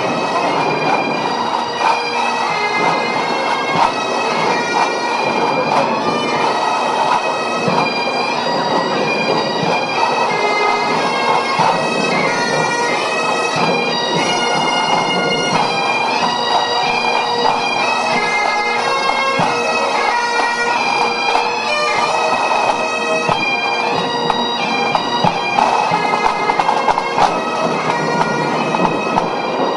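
Bagpipes playing a tune over their steady drone, loud and without a break.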